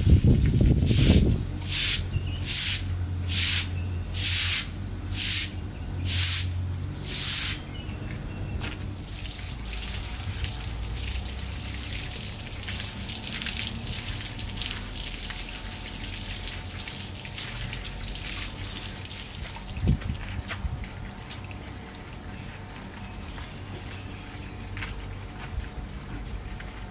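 Water spraying in about eight short spurts, roughly one a second, then running as a fainter steady spray that dies away.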